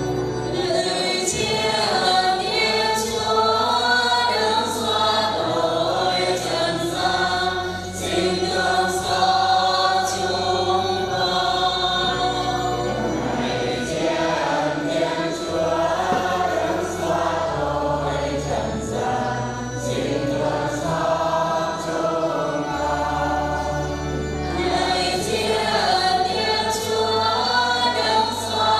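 Choir singing a hymn with organ or keyboard accompaniment, the bass holding long notes that change every couple of seconds.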